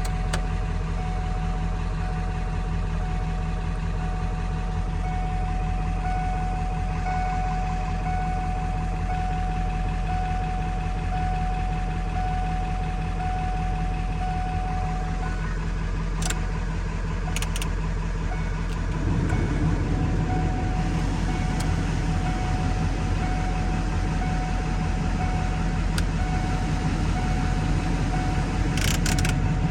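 Vehicle engine running at a steady idle. About two-thirds of the way in it becomes louder and rougher, with a few brief clicks.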